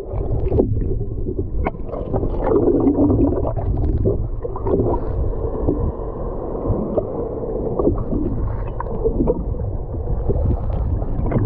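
Humpback whale making low moaning calls heard underwater, the longest about two and a half seconds in, over a steady low rumble and scattered crackling clicks.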